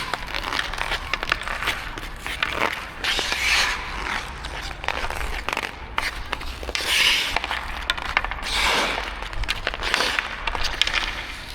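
Ice skate blades scraping and carving on natural outdoor ice in repeated swishes, with sharp clicks of a hockey stick and puck during side-to-side stick handling.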